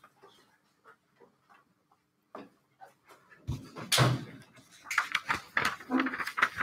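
People moving about a classroom: footsteps, clothing and bag rustle and small knocks on desks, with a loud thump about four seconds in and a close, dense rustling clatter near the end.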